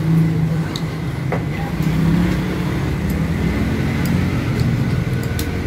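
Road traffic: a motor vehicle's engine running with a steady low drone, with a few faint light clicks over it.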